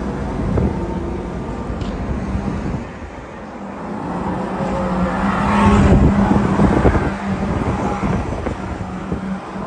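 Electric go-karts running on the track, with a steady motor hum. One kart comes close and passes, so the sound grows to its loudest a little past the middle and then falls away.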